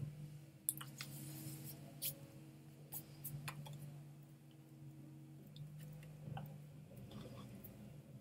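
Faint steady low hum with scattered small clicks and taps.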